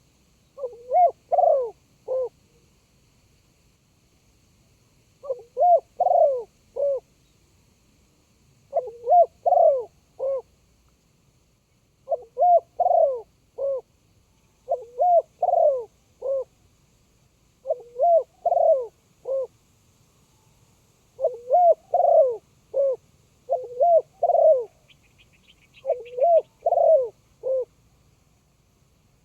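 Spotted dove cooing: a short phrase of three or four low coos, repeated about nine times, one every three seconds or so.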